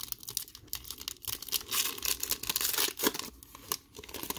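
Clear cellophane wrapper of a trading card cello pack being torn open and crinkled by hand, a run of crackles with the loudest crack about three seconds in.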